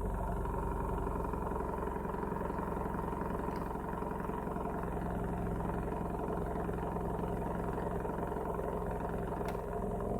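Nissan Primera P12's SR20VE 2.0-litre four-cylinder engine running steadily from a cold start. It has an abnormal noise that the owner suspects may come from the timing chain tensioner.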